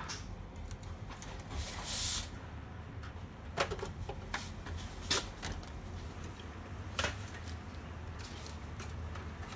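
Hands handling the plastic casing of an HP LaserJet Pro M12a laser printer during disassembly: a short scrape about two seconds in, then several sharp plastic clicks and knocks as the top cover is worked.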